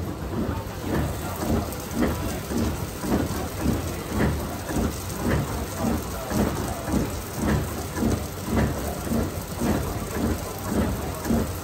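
Silvio Bessone two-roller chocolate melangeur running, its heavy rollers grinding through liquid chocolate with a rumble that pulses evenly about twice a second.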